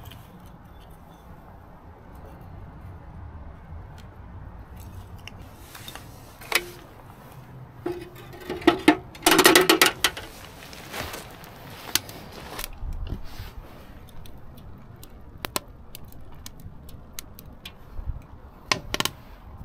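Split wooden kindling sticks knocking and clattering against a steel ammo-can stove as they are fed into it, with a burst of loud clatters about nine seconds in and single knocks at other points. Between them come faint ticks from the freshly lit paper-and-kindling fire.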